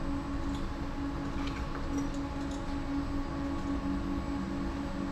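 Cabin noise inside a Uijeongbu light rail car, a Siemens VAL 208 rubber-tyred automated train: a steady hum of the car's drive and running gear under an even low tone, with a few faint ticks and rattles about two seconds in.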